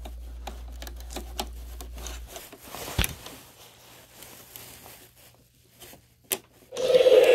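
Rubbing and handling noise on the phone, with scattered clicks and one sharper knock about three seconds in. Half a second before the end, a much louder sound with a steady droning tone starts up: the animatronic prop starting its sound routine.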